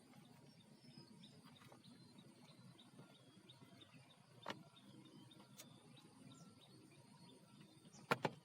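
Near-silent outdoor quiet with faint, scattered small bird chirps over a low steady hum. There is a single soft knock about four and a half seconds in and two sharp clicks close together near the end.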